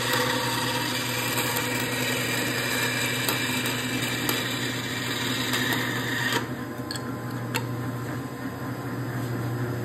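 Band saw blade cutting through a marbled carbon fiber knife scale over the steady hum of the saw's motor. The cutting noise stops abruptly about six seconds in as the cut finishes, the motor keeps running, and two clicks follow.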